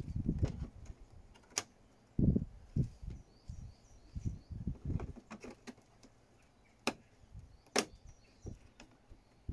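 Round gauges being handled and pushed into the holes of a boat dashboard panel: scattered dull knocks and rubs with three sharp clicks, the last two close together near the end. Faint bird chirps behind.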